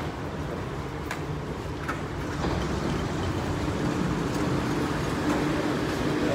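Dubai Metro Red Line train standing at the platform, a steady electric rumble and hum, growing louder partway through as the platform screen doors and train doors slide open.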